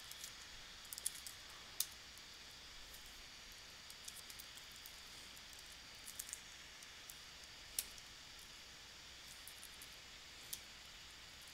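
Scattered keystrokes on a computer keyboard, a few quick clicks at a time with pauses between, over a faint steady hiss.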